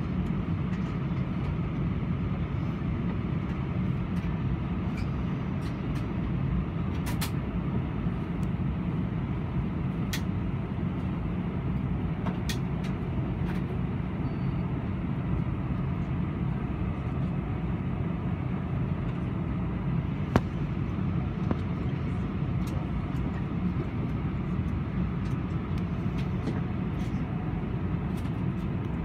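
Steady low rumble of air conditioning inside the cabin of an Airbus A318 parked at the stand, with a few faint clicks, one sharper about two-thirds of the way through.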